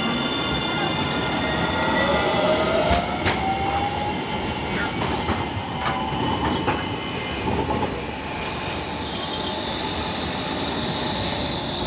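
A city tram running along its rails: wheels squealing in high steady tones over a rumbling ride, with a rising whine as it picks up speed in the first few seconds and a couple of sharp clicks about three seconds in.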